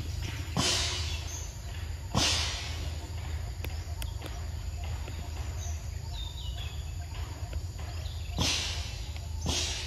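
A macaque biting and sucking at a ripe mango, in short bursts: two near the start and two near the end. A low steady rumble runs underneath, and faint bird chirps come in the middle.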